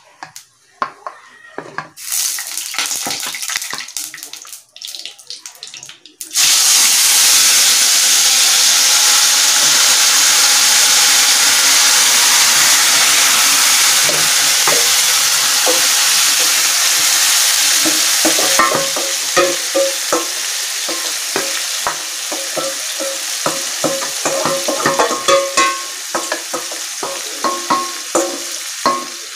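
Whole spices crackling in hot oil, then, about six seconds in, a sudden loud, steady sizzle as wet yogurt-marinated chicken is tipped into the hot oil in a kadai. In the last third the sizzle eases a little under repeated clinks and scrapes of a steel pot against the pan.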